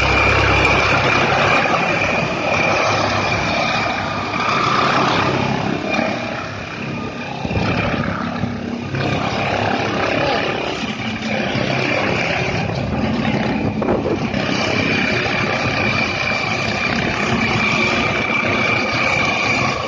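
Helicopter landing and then running on the ground, with steady rotor and engine noise and a high turbine whine over it. The level dips slightly partway through, then holds steady.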